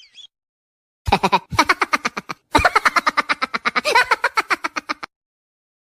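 Laughing sound effect: a fast, staccato run of "ha-ha-ha" pulses in two long bursts with a short break between them, starting after a moment of silence.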